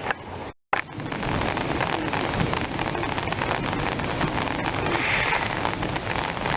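Heavy rain pouring down, a dense steady patter of drops on surfaces. The sound cuts out briefly about half a second in.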